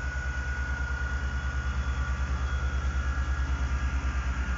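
Class 158 diesel multiple unit's underfloor diesel engine running under power as the train pulls away slowly, a rapid low throb with a thin whine above it that sags slightly in pitch.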